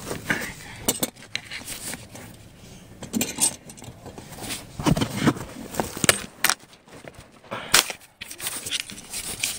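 Handling noise: irregular clicks, taps and scrapes of loose metal hand tools and the camera being moved about on car floor carpet, with a few sharper knocks about five, six and eight seconds in.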